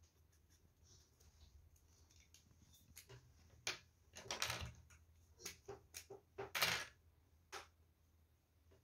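A handful of sharp clicks and short rustles in the middle: felt-tip marker pens being set down and picked up on a desk between colours, with the paper quiet otherwise.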